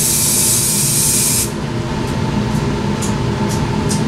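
Aerosol spray paint can hissing in one continuous spray, decanting paint into a plastic cup, cutting off suddenly about a second and a half in. A few short hisses follow.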